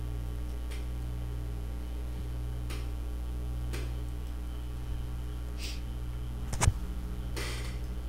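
Steady low electrical hum on the recording, with a few faint clicks and short hisses, and one sharper click about six and a half seconds in.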